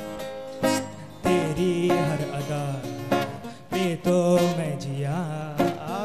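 Acoustic guitar strummed in a slow, steady pattern under a man's sung melody, a Hindi song with guitar and voice alone.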